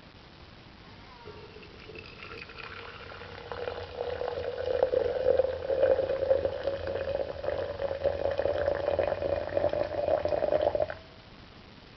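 Water poured into a tall glass over a flowering tea ball, splashing steadily with a ringing tone, then stopping abruptly near the end.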